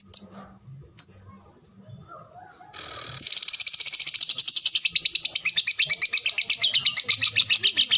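Lovebird giving a couple of sharp single chirps, then, about three seconds in, breaking into a long, fast, unbroken run of chattering high notes: the drawn-out 'ngekek' trill.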